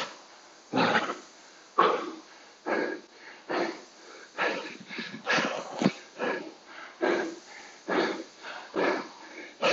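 A man panting hard for breath after an all-out rowing-machine piece, with loud gasping breaths about once a second that come quicker from about halfway in.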